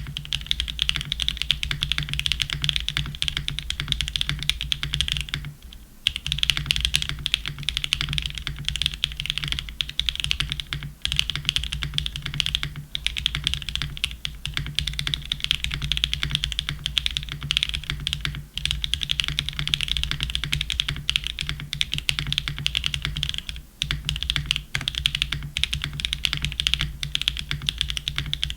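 Fast, continuous typing on a custom mechanical keyboard: a polycarbonate-case Ciel65 with Mode Tomorrow tactile switches on a POM plate, o-ring mounted, with no foam. The typing breaks off briefly twice, and a steady low hum from the recording sits underneath.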